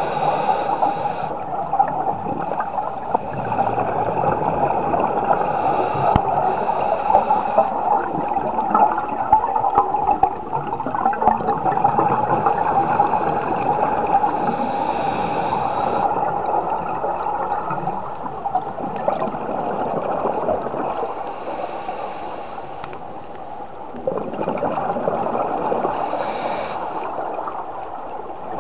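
Underwater scuba breathing, heard through a camera housing: a steady rushing hiss with bubbling, gurgling exhalations swelling every several seconds.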